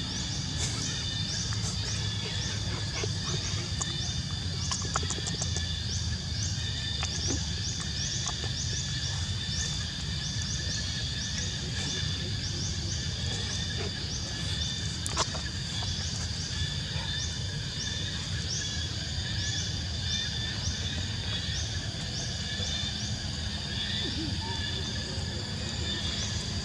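Animal calls: a short, high, rising chirp repeating about twice a second over a steady high drone and a low rumble.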